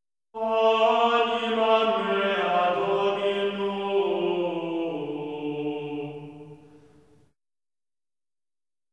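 Dark ambient music: a sustained, chant-like drone of held chords that starts suddenly and steps down in pitch a few times, then fades out about seven seconds in.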